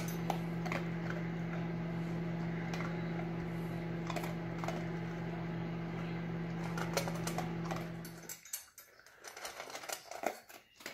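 A dog crunching dry kibble from a stainless steel bowl: irregular crisp clicks and crunches. Under it a steady hum runs and cuts off about eight seconds in.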